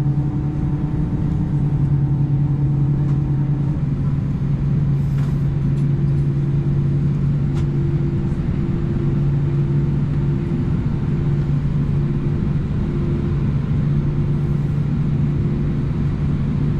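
Steady cabin drone of an Airbus A319 on the ground: a low hum with a steady tone over rushing air, from the aircraft's engines and air systems running. A higher tone in the hum drops out about four seconds in and comes back slightly higher a second later.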